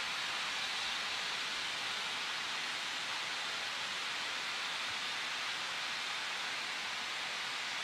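Steady rushing hiss from a Shay geared steam locomotive taking water at the tank, with water running from the spout into the tender while steam vents from the engine.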